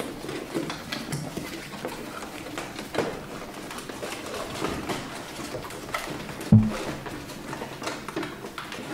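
Cardboard boxes being slid and lifted out of a 3D printer's enclosure: cardboard scraping and rustling with small knocks. One dull thump about two-thirds of the way through is the loudest sound.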